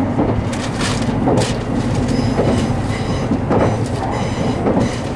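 Electric limited express train heard from inside the passenger car: steady running rumble with irregular clicks and knocks of the wheels over rail joints and points as it runs into a station. A faint high wheel squeal comes in around the middle.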